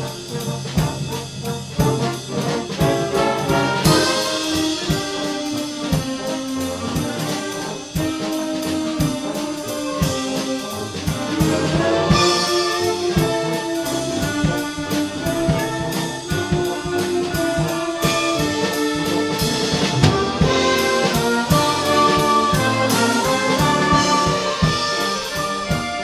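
Community concert band playing, with the brass (trombones and trumpets) carrying the tune over a steady percussion beat.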